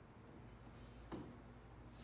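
Near silence: faint low room hum, with a single soft knock about a second in.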